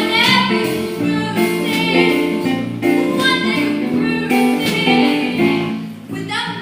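Music: singing over instrumental accompaniment, a song number from a stage musical.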